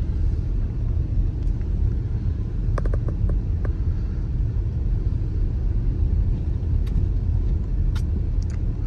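Steady low rumble of engine and tyres heard inside the cabin of a 2018 Dodge Durango driving on snowy roads, with a few faint clicks about three seconds in.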